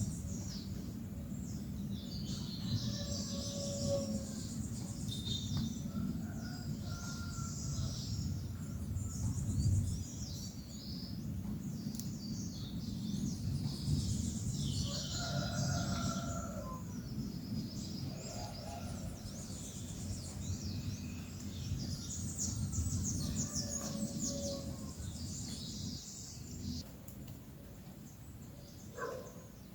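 Several birds chirping and calling, many short high chirps throughout with a few lower, longer calls now and then, over a steady low background rumble.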